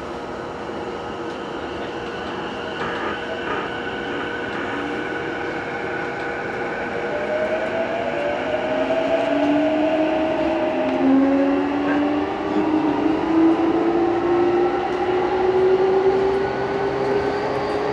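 Running sound inside the motor car of a JR East E233-2000 series electric train, as the train pulls away and accelerates. The traction motor and inverter whine climbs steadily in pitch over the rumble of the wheels on the rails, getting louder as the train gathers speed.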